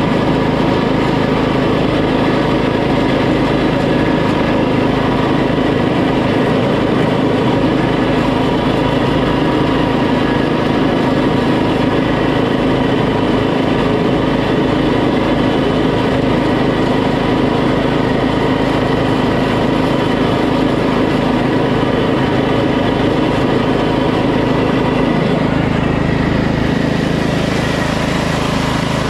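Poulan PXT12538 lawn tractor's 12.5 hp engine running steadily as the tractor drives along pavement. About 25 seconds in, the engine note changes and becomes deeper.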